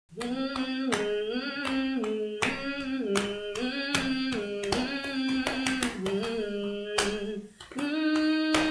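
Opening theme music: a melody of held notes stepping up and down, over sharp, regular percussive hits.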